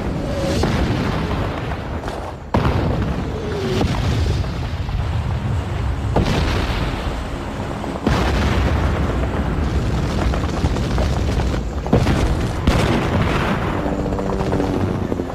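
Artillery shells exploding: a run of heavy blasts, with sudden new ones about two and a half, six and eight seconds in, each trailing off into a low rumble. Music plays underneath.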